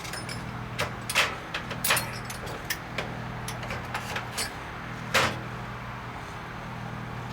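Metal drill bits clicking and clinking as they are handled, with about half a dozen separate sharp clicks. The loudest comes about five seconds in, over a steady low hum.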